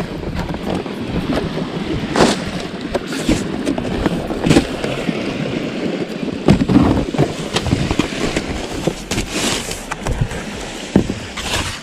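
Cardboard box being handled and opened: irregular scraping, rubbing and light knocks of cardboard and packaging.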